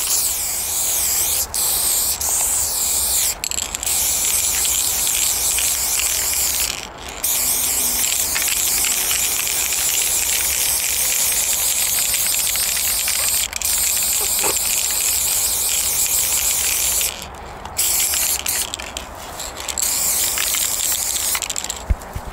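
Aerosol spray-paint can hissing in long strokes, broken by short pauses between them.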